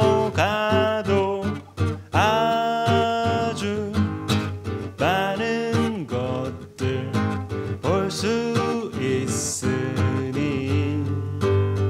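A man singing a slow song in Korean, accompanied by strummed acoustic guitar.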